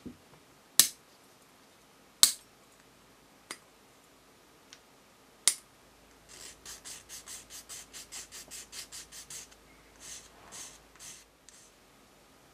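Small hand nippers snipping excess rim off a small white plastic dome: several sharp clicks, three of them loud. Then a sanding stick rasps quickly along the trimmed edge, about five strokes a second for three seconds, followed by a few slower strokes.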